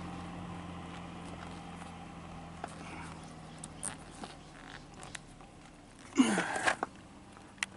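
Light clicks and rustles of hands fitting a trim clip and rubber weather strip into a window channel, over a faint steady hum that slowly fades. A little after six seconds in there is a short squeal that falls in pitch.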